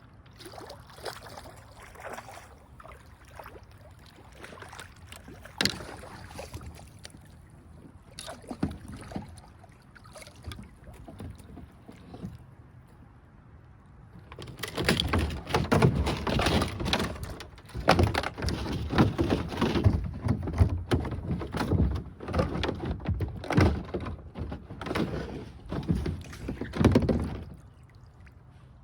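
Handling noise in a fishing kayak: irregular knocks and scrapes against the hull, light and scattered at first, then a loud, dense stretch of thumps and rattles for about thirteen seconds from about halfway through.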